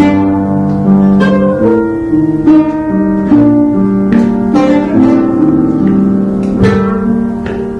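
Music: a plucked string instrument playing a melody of ringing, overlapping notes.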